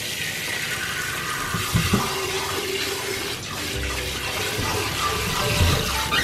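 Kitchen tap running steadily into a stainless steel sink, filling and rinsing a Joyoung soy milk maker's jug, with a couple of dull knocks, one about two seconds in and one near the end.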